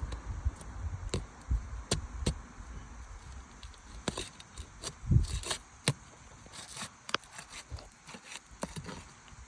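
Asphalt roof shingles being worked loose and pried apart. Irregular clicks and knocks, a heavier thump about five seconds in, and a patch of scratchy crackling and scraping in the middle.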